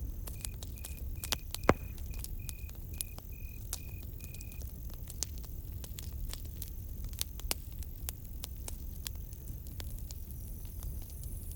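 Campfire crackling with frequent sharp pops, the loudest about a second and a half in, over a low steady rumble of the fire. A cricket chirps in an even rhythm, about three chirps a second, stopping a little under halfway through, with a fainter high insect trill coming and going.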